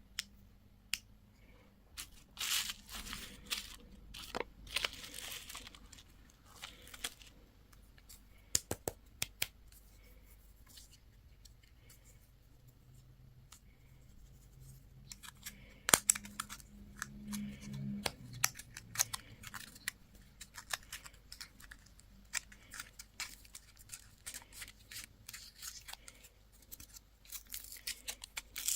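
Candy and toy packaging being torn open and crinkled by hand, in scattered crinkly bursts with sharp clicks and taps in between.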